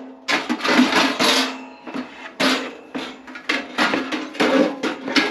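Stainless steel grill body and inner parts knocking and clattering as the lid is tipped back and the pieces are lifted out, a string of sharp metal knocks.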